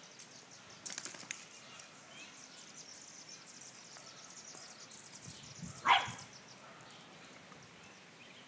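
A dog gives one short, sharp bark about six seconds in, with a few faint clicks about a second in.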